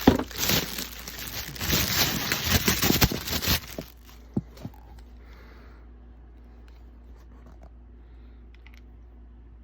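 Packaging crinkling and tearing as it is handled and pulled open, for about four seconds, then stopping, leaving only a few faint clicks.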